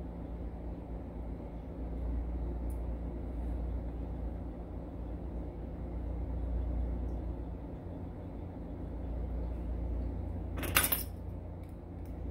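Small metal parts of an Evva 3KS lock cylinder being handled: a few faint ticks as fingers work the brass plug and its sliders, then one sharp metallic clink with a brief ring near the end. A steady low hum lies underneath.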